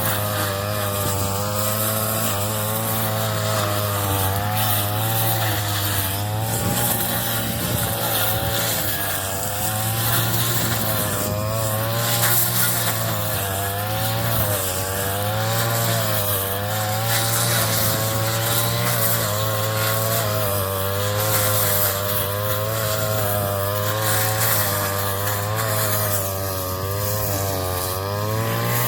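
Engine-driven straw-cutting machine running steadily, its engine note dipping and recovering every second or two as it works through the straw, over a constant noisy chopping hiss.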